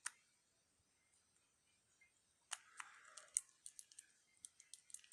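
Faint, scattered metallic clicks and ticks of lock picks working in a cheap 40 mm padlock, starting about halfway through after a quiet stretch.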